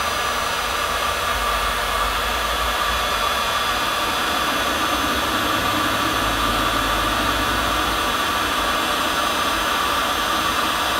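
Electric heat gun running steadily on its first setting, its fan blowing hot air.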